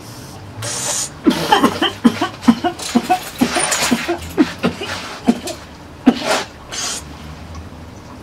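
A man's smoke-filled exhale, then a long coughing fit of many sharp coughs over about five seconds, brought on by inhaling smoke from an apple pipe.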